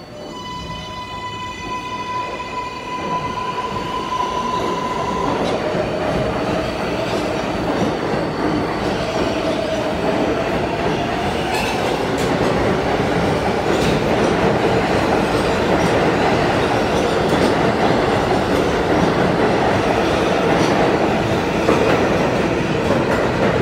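R188 subway train pulling out of the station. A steady high-pitched tone lasts about five seconds. Then the traction motors' whine rises in pitch as the train accelerates, and rumble and clatter from the passing cars build and grow steadily louder.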